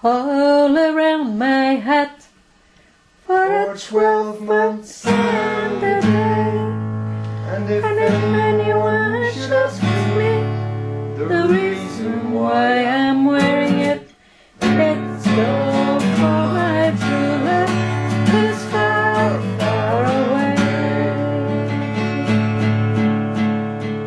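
Steel-string acoustic guitar played solo, picked and strummed: steady bass notes under a moving melody. It opens with a short wordless vocal line, and the playing breaks off twice briefly.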